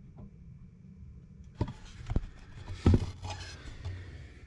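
Hand work on the ATV's air box and air filter: rustling and scraping with a few sharp knocks, starting about a second and a half in.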